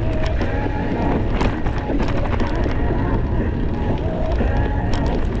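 Wind buffeting the microphone of a moving bicycle, heard as a steady low rumble.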